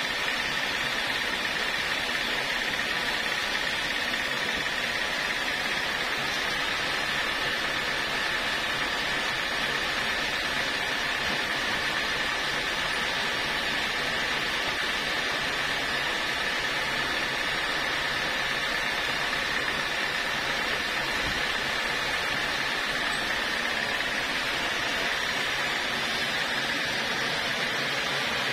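Band sawmill running, its band blade and motor giving a steady, unbroken mechanical noise with a high-pitched whine.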